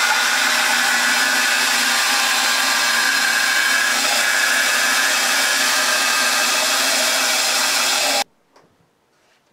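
Delta band saw running steadily and cutting narrow slots into two wooden boards clamped together. The sound cuts off suddenly about eight seconds in.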